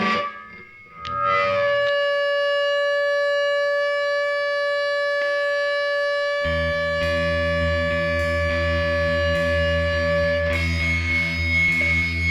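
Soundtrack music: sustained distorted guitar or synthesizer tones, with a heavy low bass coming in about six seconds in.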